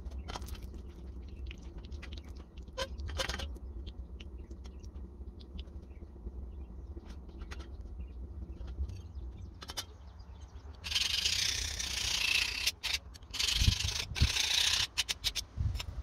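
A red-hot leaf-spring steel blade is quenched in a bowl of oil, giving a short hiss as it goes in over a low steady hum. About eleven seconds in come two long, loud rasping scrapes of metal on metal: a file drawn across the hardened blade to test its hardness.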